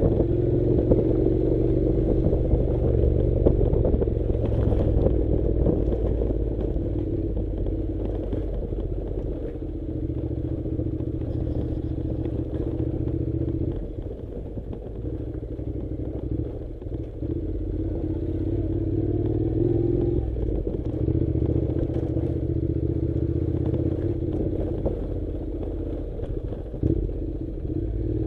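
Honda NC700 motorcycle's parallel-twin engine running steadily while riding a rough dirt track, with clattering and rattling over the surface. The engine eases off briefly about halfway, then picks up again.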